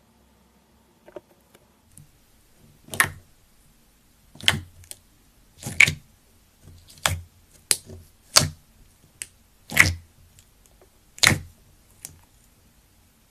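Slime being pressed and squeezed by hand, giving a series of short wet squishes and pops, roughly one every second or so.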